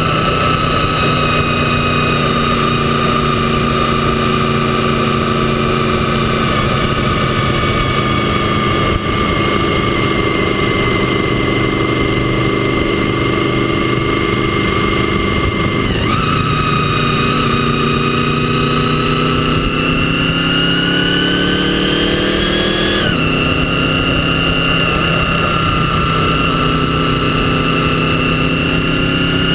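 Motorcycle engine running at a steady cruise. About halfway through the pitch dips and recovers, then the engine revs up for a few seconds and its pitch drops suddenly as it shifts up a gear.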